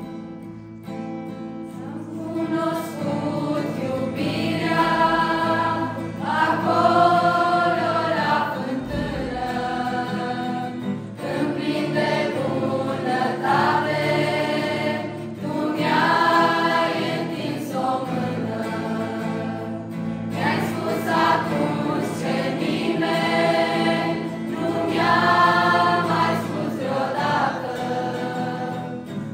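Youth choir of mostly female voices with a few men singing a Christian song in Romanian, accompanied by an acoustic guitar. The voices come in gradually over the first few seconds, then swell and ease phrase by phrase.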